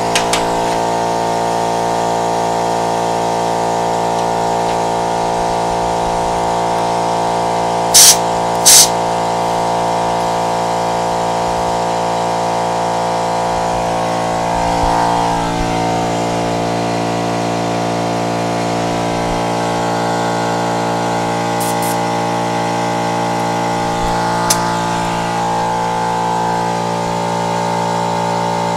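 Air compressor running steadily with an even hum while flat pneumatic mobility-scooter tyres are inflated. Two short, loud hisses of air come about eight seconds in, and a fainter one later.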